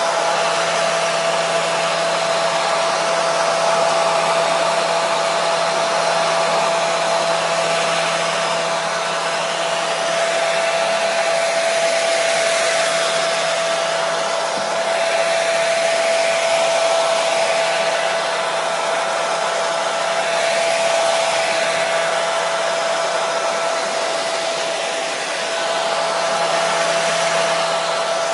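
Hair dryer running steadily, a constant rush of blown air with a steady whine from its motor and fan.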